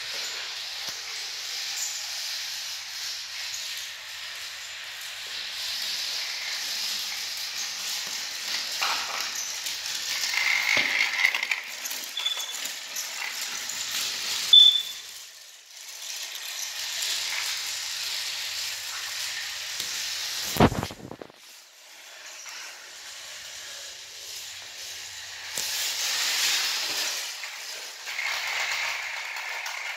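Battery-powered toy train engines running on plastic track: a steady motor whir with the rattle of wheels and cars. Two short high chirps come just before halfway, and a single low knock about two-thirds of the way through.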